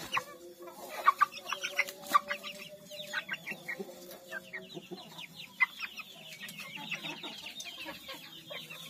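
Half-grown native chickens calling, a busy run of short, falling peeps and clucks that gets denser after about six seconds.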